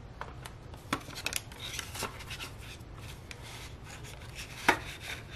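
Paper banknotes rustling and sliding as they are tucked into a cash envelope in a ring binder, with light scattered clicks and one sharper click near the end.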